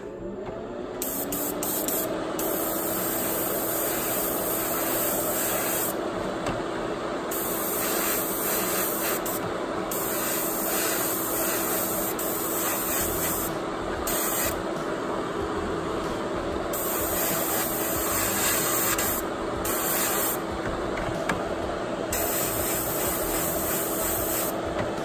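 Paasche Talon TG gravity-feed airbrush spraying paint in on-and-off bursts of hiss as the trigger is worked, breaking off about seven times. Under it an airbrush compressor hums steadily, its pitch rising as it spins up in the first second.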